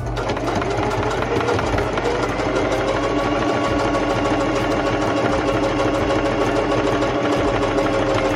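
Electric sewing machine stitching a seam through pant fabric: the needle runs in a fast even rattle while the motor whine climbs over the first few seconds, then holds steady until it stops near the end.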